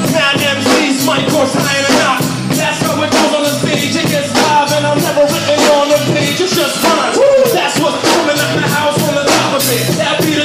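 Hip hop backing beat playing loudly, with a steady drum pattern.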